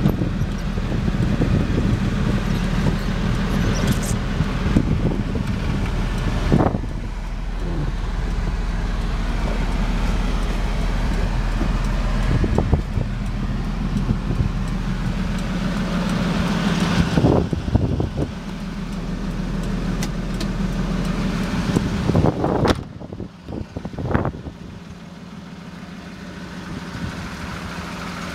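Suzuki Carry DD51T kei truck's small three-cylinder engine running steadily as the truck is driven slowly, heard from inside the cab. A few sharp knocks stand out, and about three-quarters of the way through the sound drops and the engine is heard more faintly from outside the truck.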